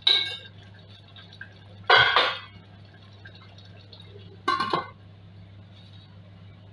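Three short metallic clatters with a brief ring, about two seconds apart: a stainless steel lid being handled and set onto a stainless steel cooking pot, the last about four and a half seconds in as the lid goes on.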